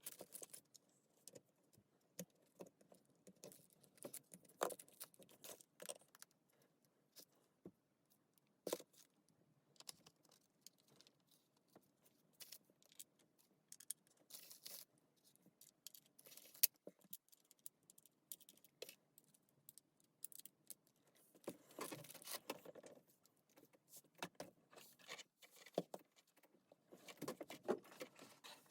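Faint scattered clicks and light metallic rattles from small tools and parts being handled, with two busier spells of clatter near the end.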